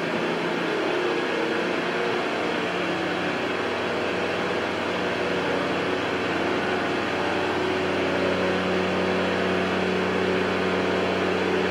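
Virgin Voyager diesel multiple unit standing at the platform with its underfloor diesel engines idling: a steady hum with several low tones.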